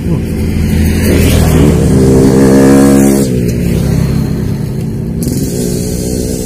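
A motor vehicle passing on the adjacent road: its engine swells to a peak about two to three seconds in, then drops in pitch and fades.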